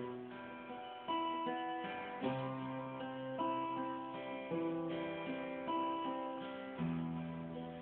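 Acoustic guitar playing chords, with a fresh pluck about once a second and the notes left to ring and fade between them.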